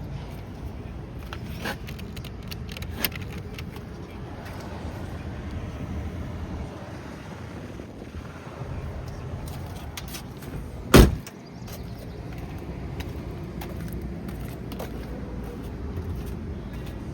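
2003 Chevrolet Avalanche V8 engine idling steadily, with a few light clicks and one loud thump about two-thirds of the way through.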